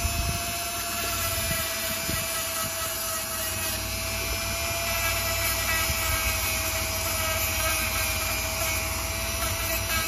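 Dremel rotary tool running at a steady high speed with an even whine, grinding old solder off a typewriter typebar.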